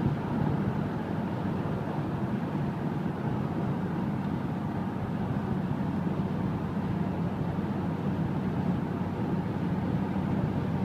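Steady cabin noise of a Corvette cruising at about 65 mph: tyre and road roar with a low engine drone, unchanging throughout.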